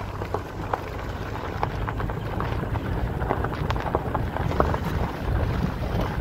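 ATV engine running as the quad rides along a rough dirt track, a steady low rumble with scattered clicks and knocks from the bumps and wind on the microphone.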